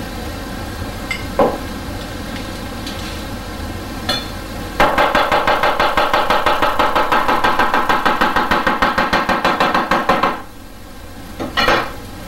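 Cleaver chopping scallions on a wooden cutting board: a fast, even run of strokes, about seven a second, from about five seconds in to about ten seconds in. A steady hum lies underneath.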